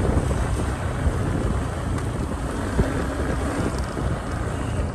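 Wind buffeting the microphone of a moving motorcycle, with the bike's engine and tyre noise running steadily underneath.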